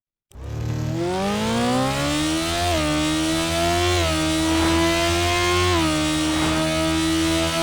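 Sport motorcycle engine cutting in abruptly, revving up over about two seconds, then running at steady high revs with a few brief dips in pitch.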